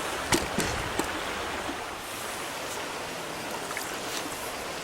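Small stream running steadily over rocks, with a few light knocks in the first second.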